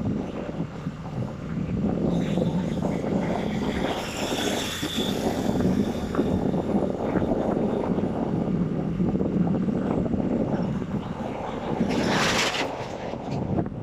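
Steady rumble of a vehicle travelling along a road, engine and road noise together. A brief rush of hissing noise about twelve seconds in.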